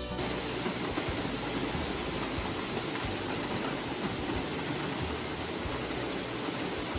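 Popcorn sheller running: a steady, even rush of machine noise that cuts in suddenly and holds level throughout.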